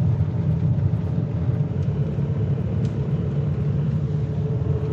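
Small camper van driving, heard from inside the cab: a steady low engine and road rumble.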